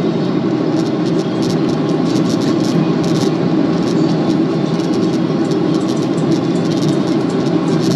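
Steady cabin noise of a Boeing 737-800 in flight: the drone of its CFM56 turbofan engines and rushing airflow, with frequent faint clicks over it.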